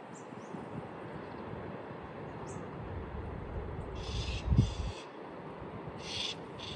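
A bird giving two pairs of short, harsh calls about two seconds apart, over a low steady rumble.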